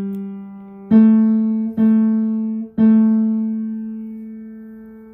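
Piano playing the tenor line one note at a time: a note fading, then three notes, the last held and dying away slowly.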